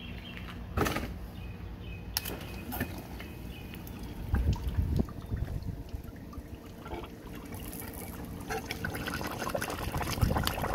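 Water pumped through an outboard's cooling jacket by a submersible pump, pouring and splashing out of the tell-tale outlet into a tub, the stream growing stronger in the second half: the pump is giving enough pressure to circulate water up to the top of the cylinders. A few knocks and low thumps along the way, the biggest about four to five seconds in.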